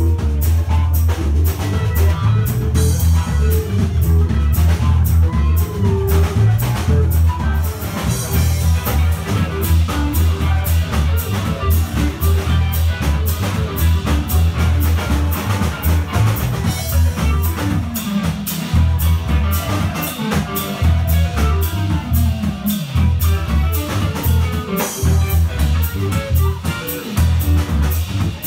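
Live band playing an upbeat groove on electric guitars and drum kit, the drums keeping a steady, busy beat throughout. Recorded on a phone among the audience.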